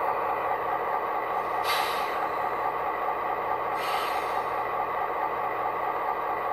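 Soundtraxx Tsunami 2 sound decoder in an HO-scale Athearn Genesis MP15AC playing an EMD diesel engine running steadily at idle through small cube speakers, with two short hisses of air release about two seconds apart.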